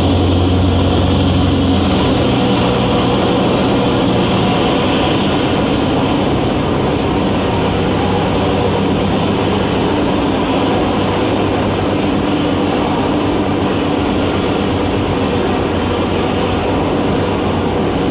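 Velocity S-FG's 180 hp rear-mounted pusher engine and propeller running steadily, heard from inside the cockpit. Its steady tone is clearest for the first couple of seconds, then blends into a fuller, even noise.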